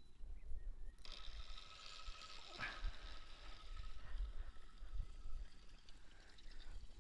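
Wind rumbling on an outdoor microphone, uneven and low, with a faint steady high whir from about a second in.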